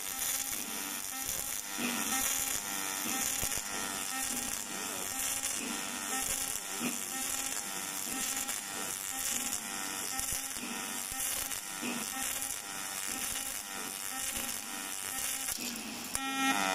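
Robotic arc welding: the arc at the tube-to-flange seam buzzes continuously with a hiss, and its pitch wavers up and down about once a second.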